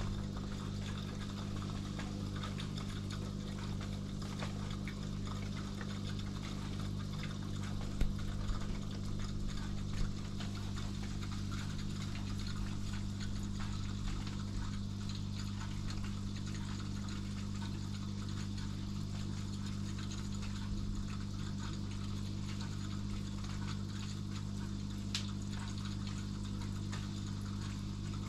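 Aquarium pump running with a steady low hum, over a constant hiss of moving water from the tank's filtration. A couple of faint clicks come about a third of the way in.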